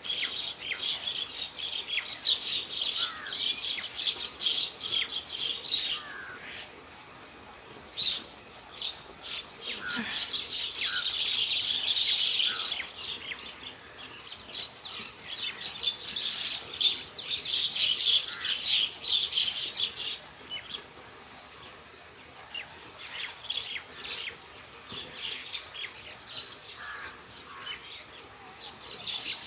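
Many small birds chirping and calling in dense, overlapping bursts, busiest in the first six seconds, from about ten to thirteen seconds and from fifteen to twenty seconds, thinning out between.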